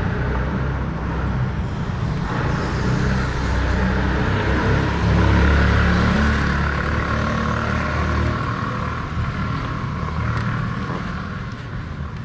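A road vehicle's engine and tyres passing by: a low rumble that builds to its loudest about halfway through, then slowly fades.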